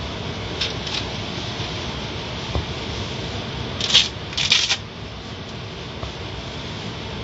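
Automatic car wash water jets spraying the car's windshield and body, heard from inside the car: a steady spattering hiss, with two loud bursts of spray hitting the glass about four seconds in.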